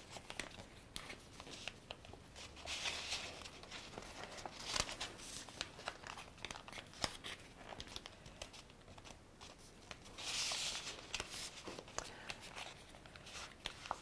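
Thin handmade paper being folded by hand, its corners brought to the center and creased flat: faint rustling and crinkling with small clicks, and a few louder swishes as fingers press along the folds.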